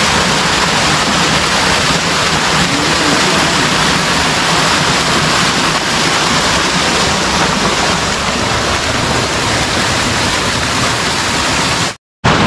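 Steady, loud rush of a small stream's running water close to the microphone. It cuts out abruptly for a split second near the end.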